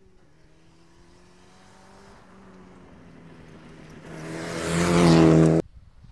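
Rally car engine at full throttle approaching on a gravel special stage, its note growing steadily louder to a peak. The sound then cuts off abruptly near the end.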